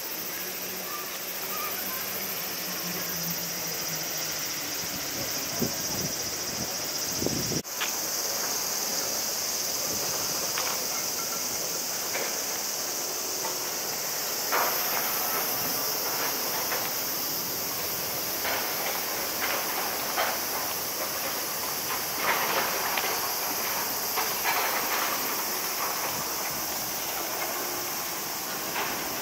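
Steady high-pitched hiss of outdoor ambience, with a brief break about eight seconds in and scattered faint knocks and scuffs.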